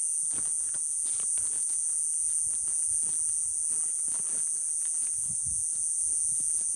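A steady, high-pitched insect chorus, unbroken throughout, with faint scattered ticks and low thumps beneath it.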